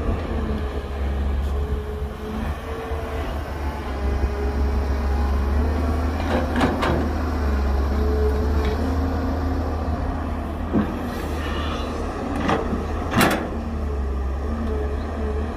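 Excavator's diesel engine running with a deep steady rumble and a whine that wavers up and down, with two pairs of sharp knocks, about six and a half and thirteen seconds in.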